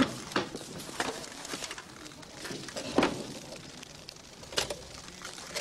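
Typewriter keys struck slowly and irregularly: single clacks spaced about half a second to a second and a half apart as a sentence is typed.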